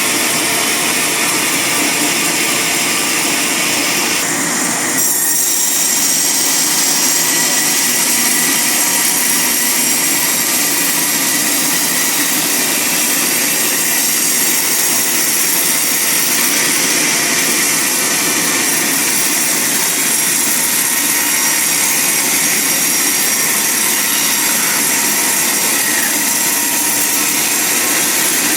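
Band sawmill running and cutting through a large log: a loud, steady whine of blade and motor, stepping up slightly about five seconds in.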